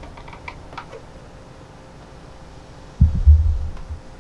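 Light metallic clicks as a motorcycle's hinged fuel cap assembly is handled on the tank, then a sudden heavy low thump about three seconds in.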